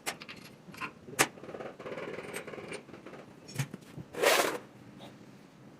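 Scattered clicks and knocks of hand work on an engine, with one louder, longer clatter about four seconds in.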